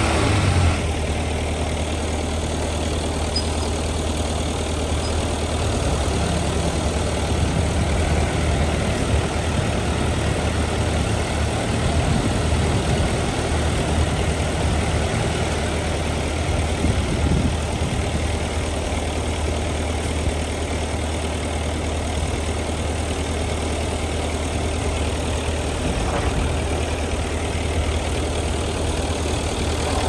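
Heavy diesel engine running steadily with a deep, even hum.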